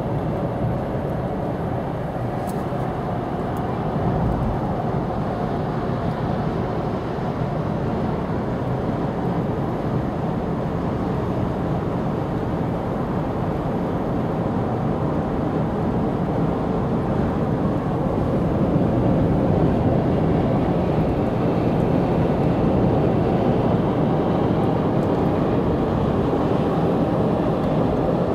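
Steady road and engine noise heard from inside a vehicle driving at highway speed, a constant low rumble that grows slightly louder in the second half.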